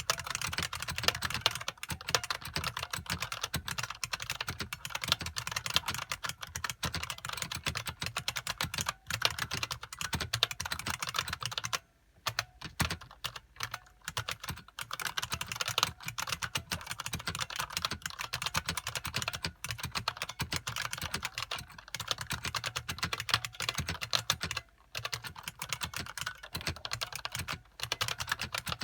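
Fast, continuous typing on an IBM Model M SSK, a 1987 buckling-spring mechanical keyboard, the keys clacking in quick runs with brief pauses about twelve seconds in, near twenty-five seconds and near the end.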